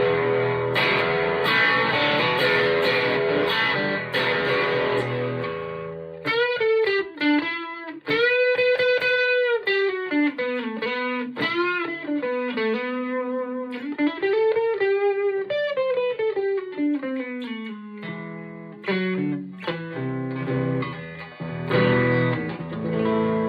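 Electric guitar played through a Marshall MG50 FX amplifier with a driven, distorted tone: strummed chords for about six seconds, then a single-note lead line with bent, sustained notes, going back to chords near the end.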